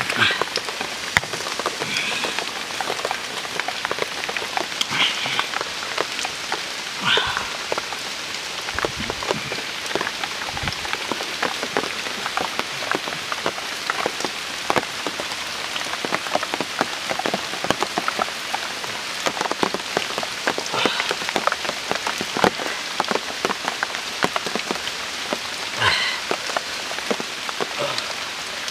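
Steady rain falling on rainforest leaves and the forest floor: a continuous hiss dense with small drop ticks.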